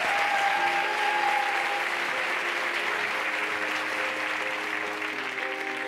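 Studio audience applauding while a band starts a pop song's intro: sustained keyboard chords with acoustic guitar. The applause thins out toward the end as the music comes forward.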